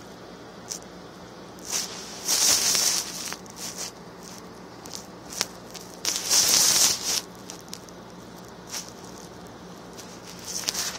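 Two rustling, scraping bursts about a second long each, with scattered light clicks between them: close handling noise.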